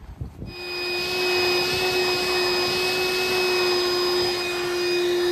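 A vacuum cleaner switched on about half a second in, its motor running at a steady whine, most likely clearing up swarf from drilling and tapping the stove's fixing holes.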